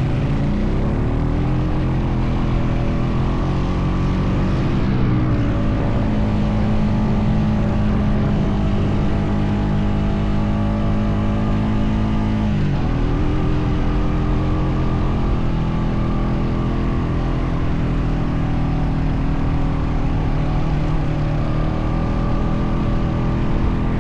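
Honda Foreman 520 ATV's single-cylinder engine pulling steadily while towing another ATV. The revs climb at the start and hold, drop sharply about halfway through, then settle at a steady lower pitch.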